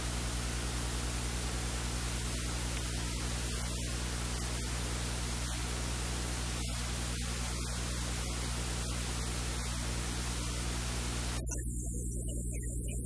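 Steady hiss with a low electrical hum. Near the end the hiss abruptly thins out, leaving mostly the hum.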